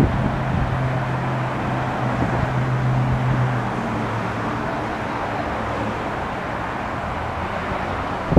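Low diesel drone of a departing two-car Stadler GTW DMU light-rail train, fading out about three and a half seconds in, over a steady rumble of road traffic.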